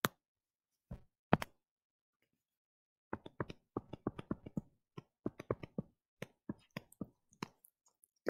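Stylus tip tapping and clicking on a tablet screen during handwriting: a few separate clicks in the first second and a half, then a quick, irregular run of small taps from about three seconds in.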